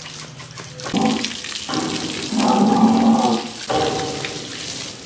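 Water spraying from a hose onto a bull and the brick floor of its pen. The hiss comes in surges, starting about a second in and loudest in the middle, then easing off near the end.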